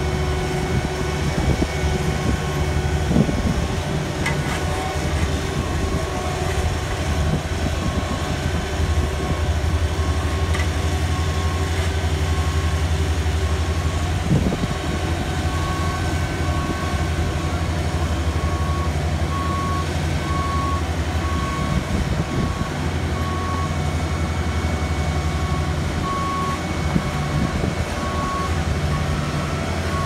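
Heavy diesel paving equipment, a Cat AP600F asphalt paver with a dump truck feeding it, running steadily with a deep rumble. From a couple of seconds in, a backup alarm beeps about once a second.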